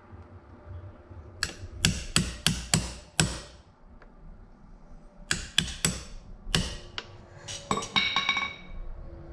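Light hammer taps on a socket, driving a thin metal outboard trim bushing the last fraction of an inch into its bore. There are two runs of about five or six taps each, with a pause between them. A few metallic clinks with a short ring come near the end.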